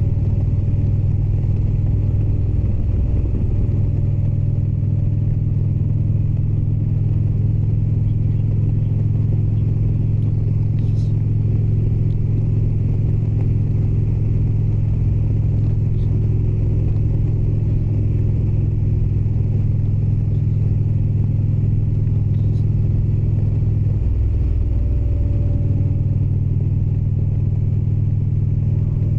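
Indian Springfield's air-cooled V-twin running steadily at cruising speed. Its note breaks briefly near the end, then settles again.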